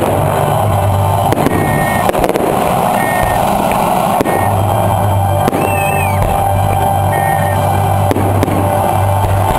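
Fireworks bursting and crackling under loud music with a steady bass line.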